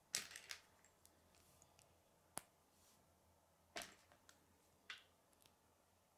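K'nex plastic rod and connector clicking as the rod is pushed and snapped into the connector: a handful of small, sharp plastic clicks, the sharpest about two and a half seconds in, with light handling noise between them.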